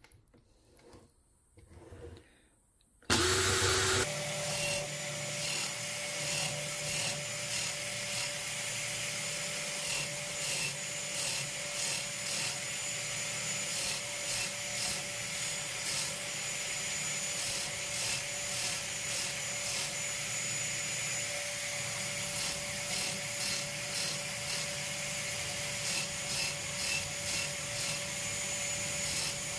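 Stanley FatMax V20 cordless drill spinning an abrasive flap disc while a small metal bit is ground against it. It starts about three seconds in with a brief louder burst, then runs steadily: a constant motor whine under a rasping grind that swells and fades in regular strokes, roughly once a second or a little faster.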